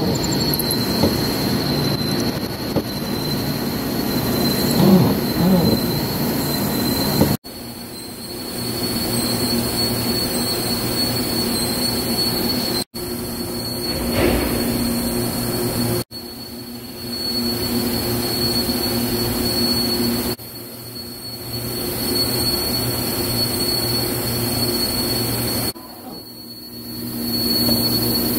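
A machine spindle running and a twist drill cutting into steel, with a steady high-pitched whine over the cutting noise. It breaks off abruptly and resumes several times.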